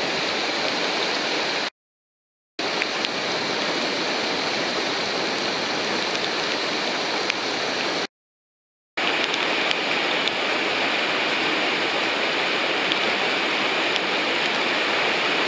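Whitewater of a river standing wave rushing steadily, with no change in pitch or level. The rush drops out twice into dead silence for under a second, about two seconds in and again about eight seconds in, where the video cuts between clips.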